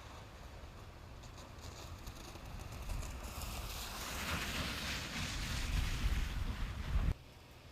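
A car driving: low road rumble with a hiss of tyres and wind that builds louder over several seconds, then cuts off suddenly about seven seconds in.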